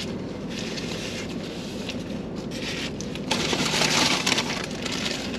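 Irregular rustling and crunching from handling and eating takeout fries and their packaging, loudest about two-thirds of the way through.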